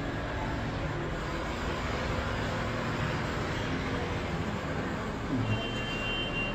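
Steady background noise with a low hum, and a brief high beep near the end.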